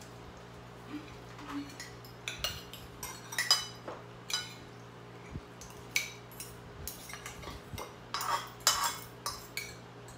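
Spoons and forks clinking and scraping on plates and a bowl as people eat, in irregular short clinks, with a louder cluster near the end.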